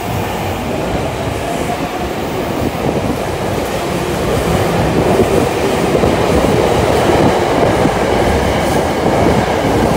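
Eidan (Tokyo Metro) 8000-series subway train pulling out of an underground station, its running noise growing steadily louder as it picks up speed past the platform.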